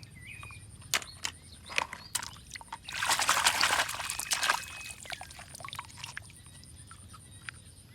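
Water pouring and splashing for about a second and a half, starting about three seconds in, with a few light clicks and taps before it.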